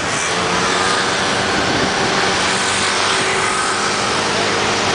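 Motor scooter running steadily under way in traffic, its engine hum under a constant rush of wind and road noise.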